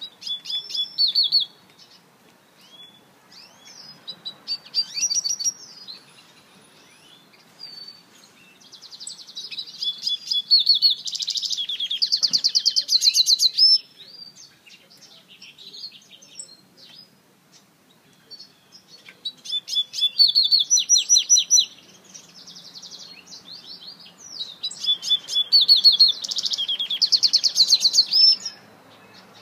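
African citril mule (a hybrid finch) singing in repeated phrases of fast, high twittering trills, five or so phrases a few seconds apart, the longest lasting about five seconds near the middle.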